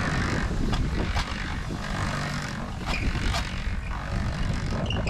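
Wind buffeting the microphone in a steady low rumble, with a few short scrapes.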